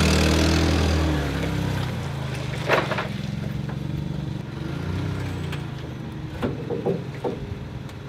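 Propane-powered forklift engine running, louder in the first second and then easing off as the forklift creeps up and its forks slide under a pickup bed. A metal clank about three seconds in, and a few lighter knocks near the end.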